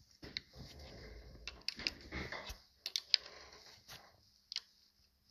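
Handling noise with sharp metal clicks and scrapes as an adjustable wrench is set onto a threaded aluminium oil-line fitting on a Ford Model T engine block and worked on it; a last click comes near the end.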